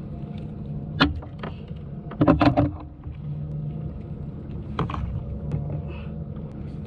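Clatter and knocks of a fish lip grip and pliers being handled over a landed grouper in a plastic kayak: a sharp knock about a second in, a louder cluster of knocks a little past two seconds, and another near five seconds, over a steady low rumble.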